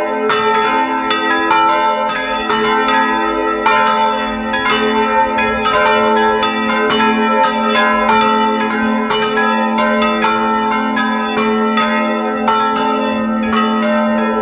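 Swinging church bells, a set of four cast by the Felczyński foundry and tuned to A, C, E and G-sharp, ringing together in a full peal. Their strikes overlap in an irregular pattern, several a second, over a strong sustained hum.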